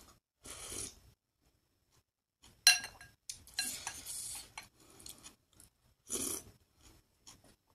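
A ceramic soup spoon scraping and clinking against a glass bowl in short bursts, with one sharp clink about two and a half seconds in, then a slurp of broth from the spoon towards the end.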